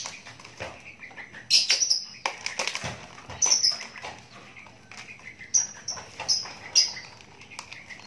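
Young Javan myna chirping in short, irregular calls, with wing flutters and light knocks as it hops about its wire cage and onto the perch.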